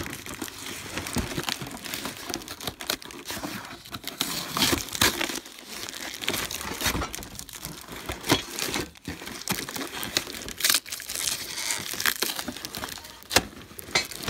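Plastic wrap and cardboard packaging crinkling and rustling while cart parts are handled and pulled from the box, with scattered knocks and scrapes of the parts.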